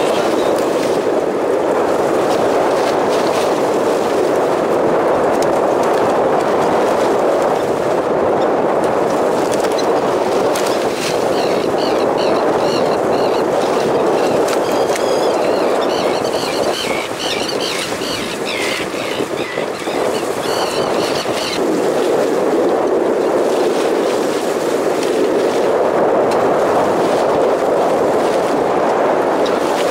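Steady rushing noise on a small open fishing boat at sea, with wind and water. Faint high chirps come and go through the middle.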